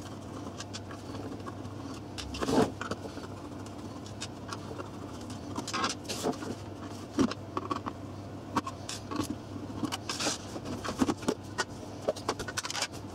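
Handling sounds of a small instrument case being taken apart: scattered clicks, taps and scrapes of a screwdriver, small screws set down and plastic side covers lifted off, with a louder bump about two and a half seconds in.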